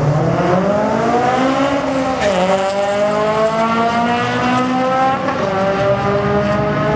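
Drag-racing car accelerating hard down the strip from the launch. The engine note climbs, drops once at a gear shift about two seconds in, then climbs steadily again.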